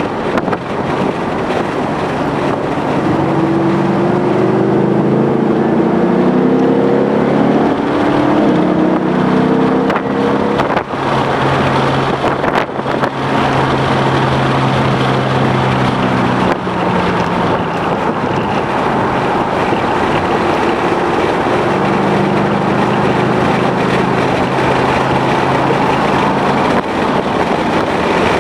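2011 Mustang GT's 5.0-litre V8 running hard at track speed, its pitch climbing over several seconds and later holding steadier, under a constant rush of wind and road noise.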